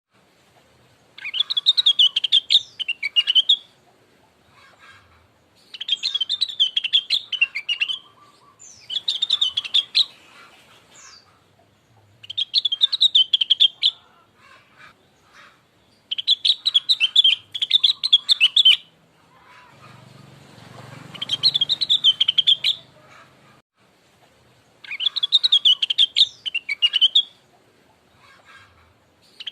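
Rengganis (blue-winged leafbird) song: loud, rapid, chirpy warbling phrases of about two seconds each, repeated roughly every four seconds with faint twitters in between. A low rustle sits under one phrase about two-thirds of the way through.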